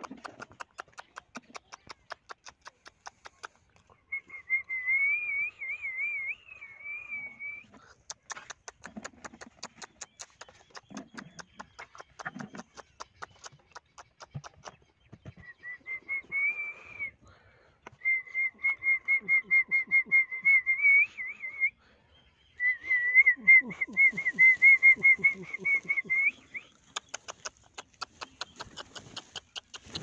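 Warbling whistling, in four stretches of a few seconds each, over a fast, even ticking.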